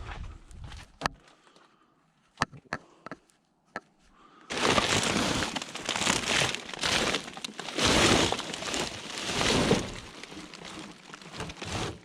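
Dumped rubbish being handled and rummaged through: a few sharp light knocks, then from about four and a half seconds in, several seconds of loud rustling and crinkling that eases off near the end.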